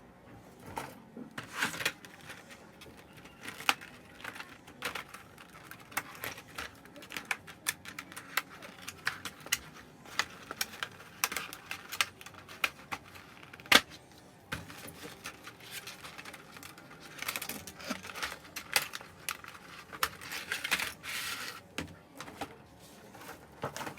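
Irregular light plastic clicks and taps with bursts of rustling, typical of plastic model kit parts, sprues and packaging being handled.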